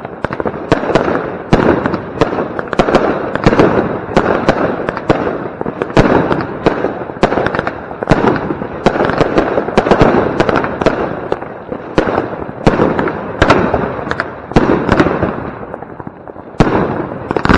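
Consumer firework batteries (two Blackboxx Knallbär and a Jorge Supershow 6) firing: a dense run of shots and bangs, several a second, over continuous crackling. They ease a little near the end before one more loud bang.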